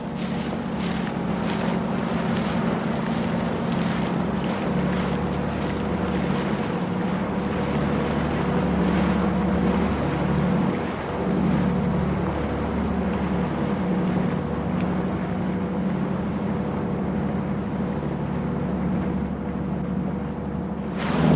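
Motorboat engine running steadily under way, with wind and water noise. Its pitch wavers a little about halfway through.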